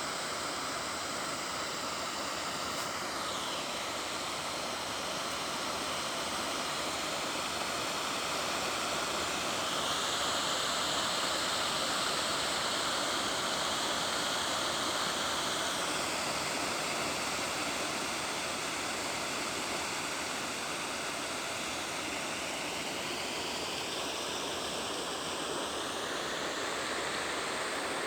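Steady rush of flowing stream water, a little louder and brighter for several seconds in the middle.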